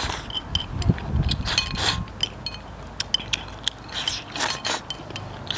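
Eating noises: slurping the last of a beef-and-radish stew's juices straight from the bowl, with chopsticks scraping and clicking against the bowl in a quick run of small clicks.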